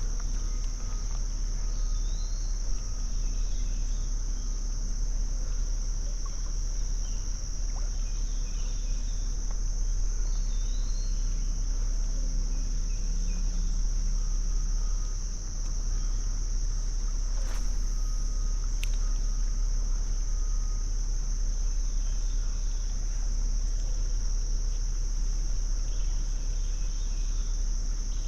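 A steady, high-pitched insect chorus that drones on without a break, with faint bird chirps now and then and a low rumble underneath. A short click sounds about two-thirds of the way through.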